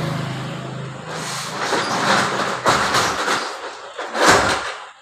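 Rough, irregular scraping and knocking from handling the opened plastic base of a mixer grinder while the motor's body nuts are tightened. It comes in uneven strokes, loudest near the end, and a low hum fades out in the first second.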